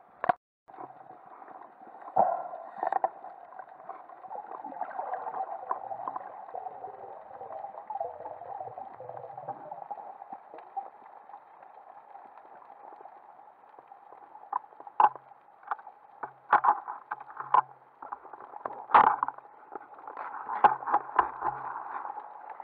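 Underwater sound picked up through a camera's waterproof housing: a steady rush of water with scattered sharp clicks and knocks, which come thickest in the last third.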